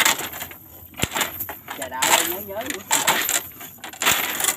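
Metal chain sinkers along the edge of a cast net clinking and jangling as the net is gathered and held for a throw, in a run of quick, irregular metallic clinks.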